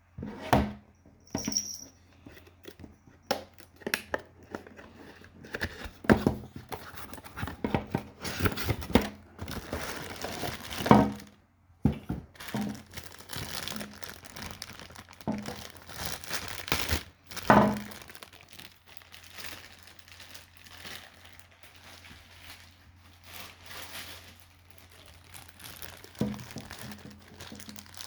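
Plastic and cardboard figure packaging being handled and opened: irregular crinkling and rustling with sharp clicks and knocks, louder handling noises about a second in, around eleven seconds and around seventeen seconds.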